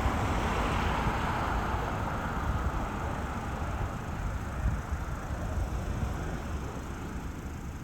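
A car driving past, its road and engine noise fading slowly as it moves away.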